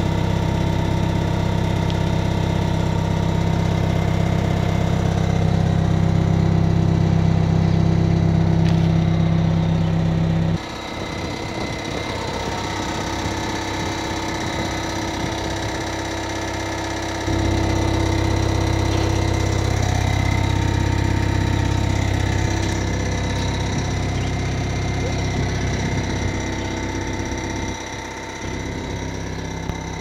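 2007 New Holland C175 compact track loader's diesel engine running steadily, with sudden changes in level and pitch about a third of the way in and again a little past halfway.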